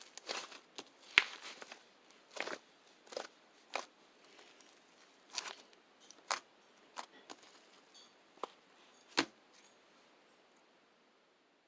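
Irregular sharp clicks and crackles, about a dozen spread over the stretch, growing sparser and dying away near the end.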